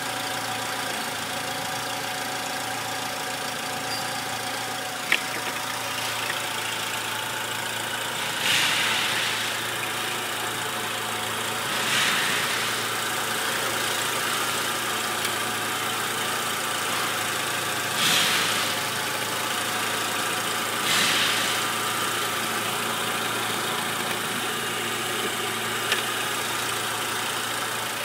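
Renault Scenic's 1.6-litre K4M 16-valve four-cylinder petrol engine idling steadily, with four brief louder swells of about a second each and a single sharp click about five seconds in.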